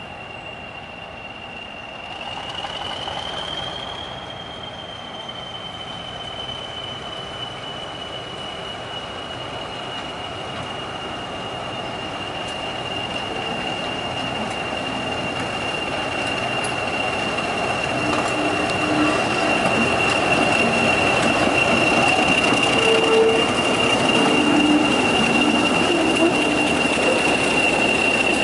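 English Electric Class 40 diesel locomotive 40106 approaching and passing at close range, its engine note growing steadily louder. A steady high-pitched turbocharger whistle rides over the engine throughout, rising briefly about two seconds in and then settling.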